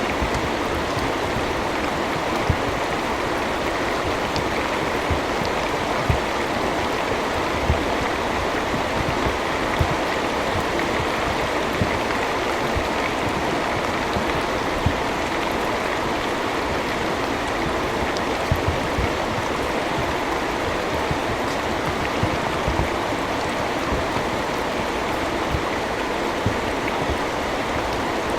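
Steady rain falling, with louder single drops landing every second or two.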